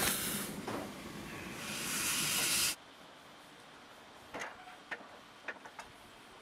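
Water rushing into the cold miniature steam locomotive's water tank as it is topped up, a steady hiss that stops abruptly a little under three seconds in. A few light clicks follow.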